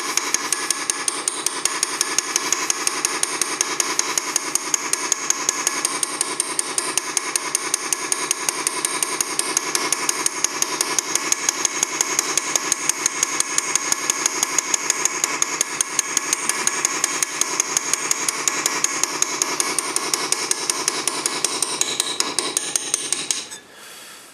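A small hand-forged engraving hammer, made from old axle steel, tapping the end of a hand-forged steel graver in a rapid, even rhythm of light strikes, several a second, as the graver cuts a groove into a metal plate clamped in a bench vise. Each strike has a metallic ring. The tapping stops about a second before the end.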